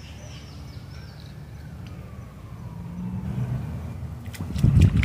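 Low steady rumble of distant road traffic, with a faint siren-like wail rising and then falling. About four and a half seconds in, a louder run of quick, regular knocks or rustles begins, several a second.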